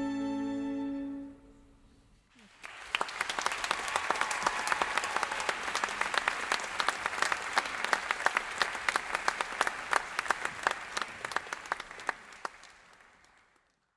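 A chamber orchestra's final held chord, strings sounding, dies away about a second in. After a brief silence the audience breaks into applause, which fades out near the end.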